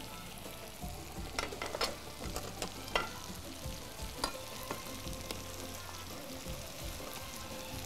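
Chopped onions sizzling in oil in a frying pan, a steady crackle, with a few sharp clinks of kitchen utensils against the pot scattered through it.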